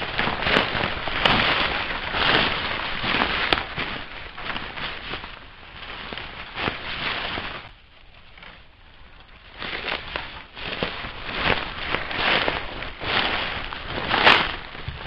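Dry leaf litter, twigs and brush crackling and snapping as a person moves through dense undergrowth. There is a brief lull a little past halfway.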